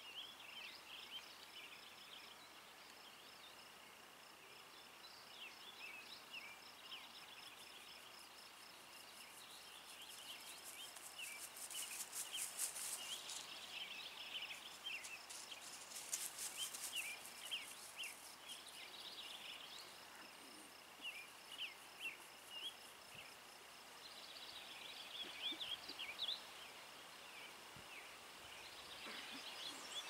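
Outdoor summer ambience: birds chirping in a steady stream of short, quick notes over a constant high insect trill. Twice, about a third of the way in and again just past halfway, a louder, rapid high-pitched buzzing rises over them for a couple of seconds.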